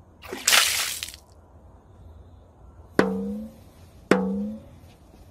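A short rushing noise about half a second in, then two sharp percussive drum-like hits about a second apart, each ringing briefly with a low pitched tone; a third hit lands right at the end. These are edited-in percussion sound effects.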